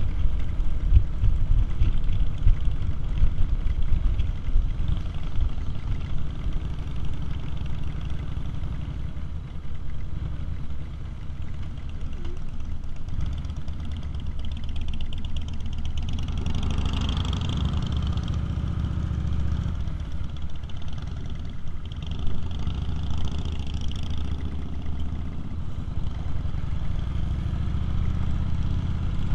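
Harley-Davidson motorcycle engine running at cruising speed, heard from the rider's seat with wind rushing past. A few seconds of louder rushing noise come up around the middle.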